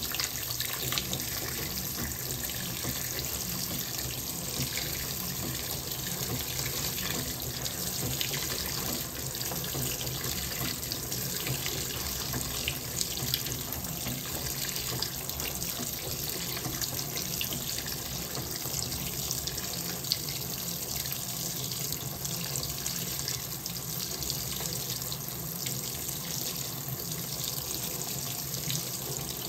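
Fisher & Paykel WL8060P1 washing machine filling with water: a steady rush of water coming in through the inlet, with a faint low hum underneath.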